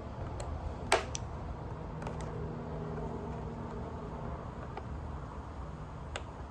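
A few sharp clicks and taps of hand work on small parts, the loudest about a second in, as a rubber fuel line and its clamp are fitted to a small engine's fuel pump, over a steady low hum.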